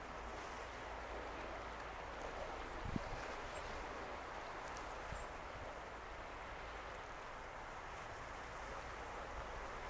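Steady wash of choppy harbour water, with a low wind rumble on the microphone. A brief knock comes about three seconds in, and faint high chirps twice.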